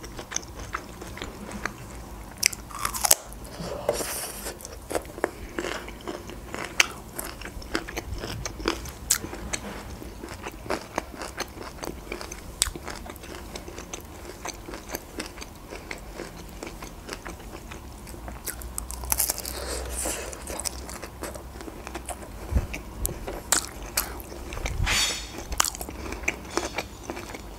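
Close-miked biting and chewing of steamed broccoli, with many small crunches and wet mouth clicks spread through.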